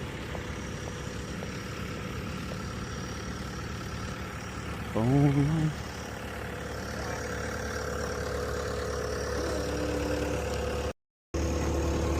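Vehicle engine idling steadily. About five seconds in there is a brief voice-like sound, and the audio cuts out for a moment near the end.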